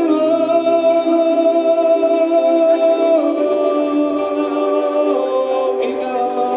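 Street music: a melody of long held notes, sung or played, changing pitch about halfway through.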